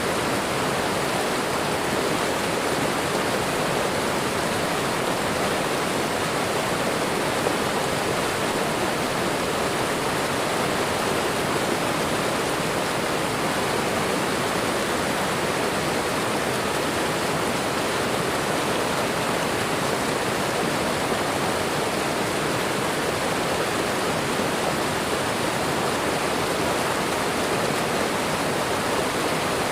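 Waterfall with running water rushing in a steady, unbroken hiss.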